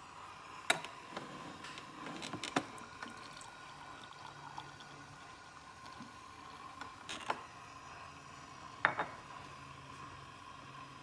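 Hamilton Beach BrewStation coffee maker making faint liquid gurgles and a few sharp ticks over a steady faint hum; the machine keeps making this noise after brewing is done and while holding the coffee warm.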